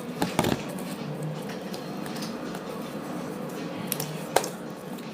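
Quiet room background with a few light clicks and taps from handling things on a table: a pair early on and two more, the second the sharpest, near the end.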